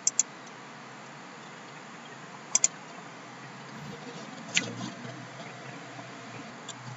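A few sharp computer mouse clicks: two at the start, a quick pair about two and a half seconds in, and one about four and a half seconds in, over faint steady hiss.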